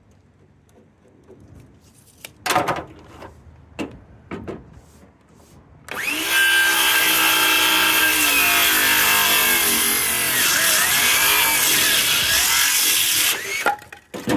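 A few knocks, then a cordless power saw cutting through a 2x4 for about seven seconds, its motor pitch sagging under the load. The saw's battery is almost dead.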